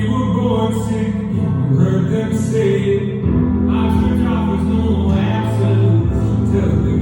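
Background song with singing voices over sustained instrumental chords and bass.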